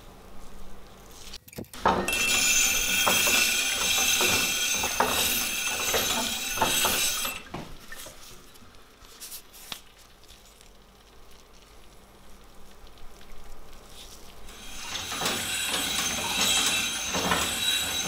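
Steel axe head being ground on a treadle-driven wet grindstone: a scraping hiss with many small clinks. It starts about two seconds in, drops to quieter handling of the metal midway, and grinds again near the end.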